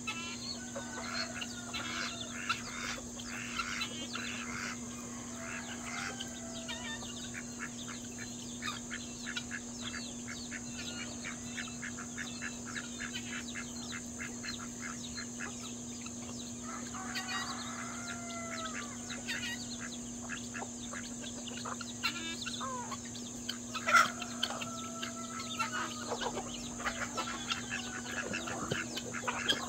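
Mixed poultry flock of chickens, ducks and guinea fowl calling, with many short clucks and chirps overlapping throughout. A sharp, louder call stands out about three-quarters of the way through.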